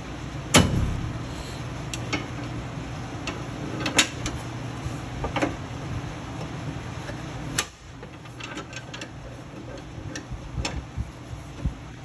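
Scattered knocks and clicks of tools against steel suspension parts as a new shock absorber is pried into line with its bolt holes, with the loudest knocks about half a second in, at about four seconds and at about seven and a half seconds. A steady low hum runs underneath and stops at about eight seconds.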